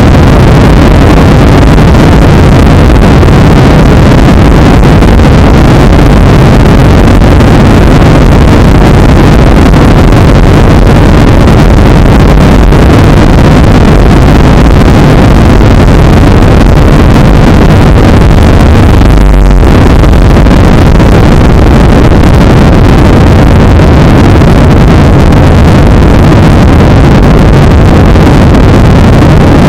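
Boeing 737-800 heard from inside the cabin on its takeoff roll and lift-off: a loud, steady run of the CFM56-7B turbofans at takeoff thrust, with a brief low thump about two-thirds of the way through.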